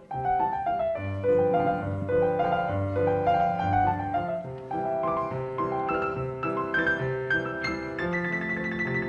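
Piano music: a melody over a rhythmic bass line, the texture growing fuller about eight seconds in.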